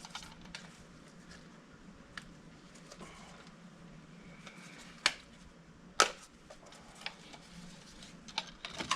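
Scattered light clicks and taps of hands working the air filter housing on a mini excavator, with two sharper clicks about five and six seconds in.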